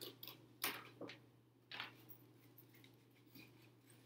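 Scissors cutting through thin cereal-box cardboard: about four short snips in the first two seconds, then faint.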